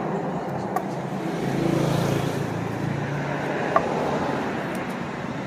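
A motor running steadily, with two brief clicks about three seconds apart.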